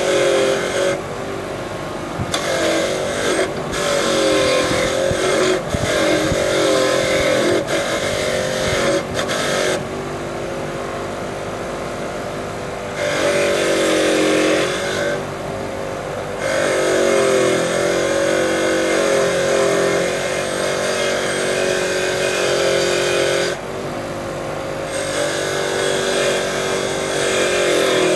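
Bench grinder's wire brush wheel spinning while a small engine valve is pressed against it in repeated spells to clean it. Each time, a harsh scratching rises over the motor's hum, and the hum sags slightly in pitch under the load.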